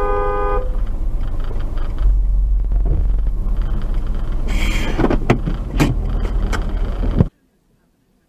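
A car horn held and released about half a second in, followed by the steady low rumble of a car heard from inside the cabin, with a few sharp knocks and a brief noisy burst about four and a half seconds in. The sound cuts out abruptly a little after seven seconds.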